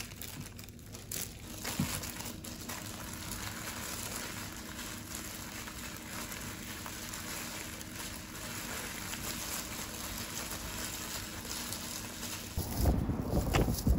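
Thin plastic food-handling gloves crinkling briefly in the first couple of seconds, then a steady soft hiss. About a second before the end, wind starts buffeting the microphone with a loud rumble.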